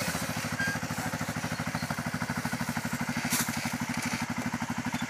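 Kymco MXU 500 quad's single-cylinder four-stroke engine idling with a steady, even pulse of about ten beats a second. There is a brief click a little past halfway.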